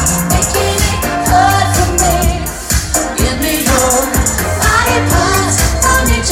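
Live pop song played loud over a club sound system: a singer's voice over an electronic dance track with a heavy bass beat and fast hi-hat ticks.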